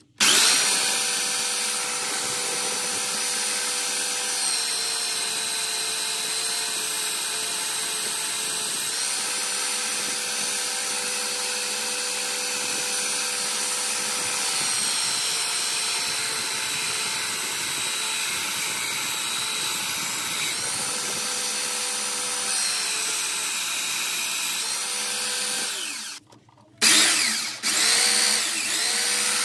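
Einhell TC-BS 8038 800-watt belt sander switching on and running with a steady whine. Its pitch drops and recovers several times, as when a steel knife blade is pressed against the belt to grind its edge. Near the end it stops for a moment and starts again.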